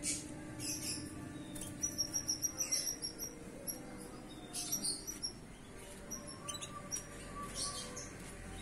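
Young domestic canary, about four months old and just starting to sing, giving several short bursts of rapid high trills and chirps.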